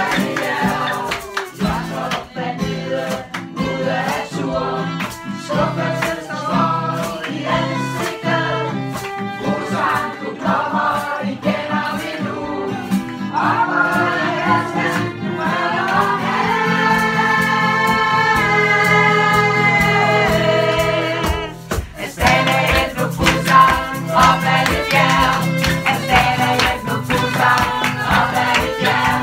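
A small group singing a song together to a strummed acoustic guitar. About halfway through they hold one long note, then after a short break the strumming and singing pick up again.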